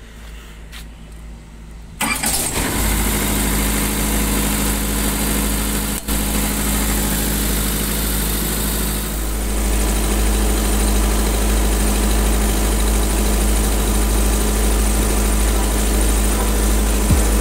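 Clip-on diesel generator set that powers a refrigerated container starts up suddenly about two seconds in and then runs steadily.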